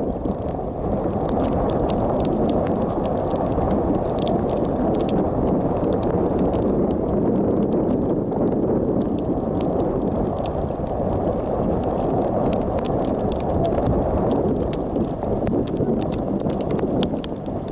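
Wind buffeting the camera's microphone in a steady, loud rumble, with raindrops striking the camera in many scattered sharp ticks.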